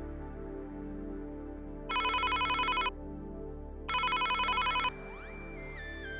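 Mobile phone ringing: two one-second rings of a fast warbling electronic ring tone, about two seconds apart, over soft background music.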